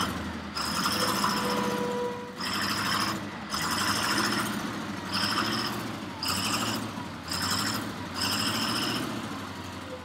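Rough-terrain crane's engine running, with a string of short bursts of high hissing whine about once a second.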